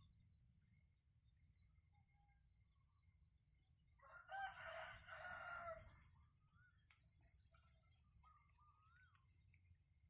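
A rooster crowing once, about four seconds in, over a faint high pulsing background drone. A few faint short chirps follow near the end.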